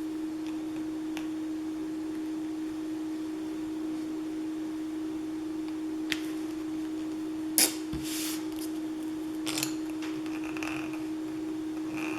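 A steady, even-pitched hum, with a few light clicks and brief paper rustles in the middle as craft paper and letter stickers are handled and glued down.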